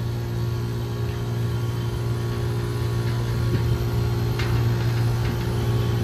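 Rooftop air-conditioning unit running with a steady low hum from its compressor, with a couple of faint clicks in the middle.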